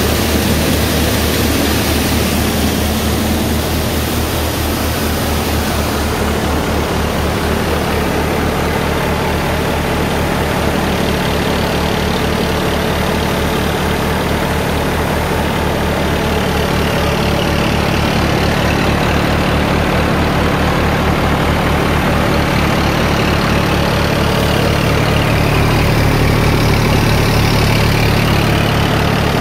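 Old Massey Ferguson tractor's diesel engine running steadily with an even firing beat, driving a Dasmesh grain thresher. The thresher's hiss and rattle of grain is louder over the first six seconds or so.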